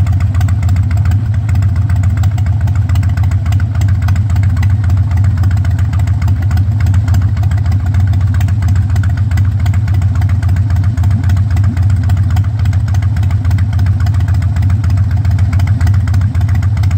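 Harley-Davidson Dyna Super Glide's V-twin engine idling steadily through its chrome exhaust, with an even low pulsing beat and no revving.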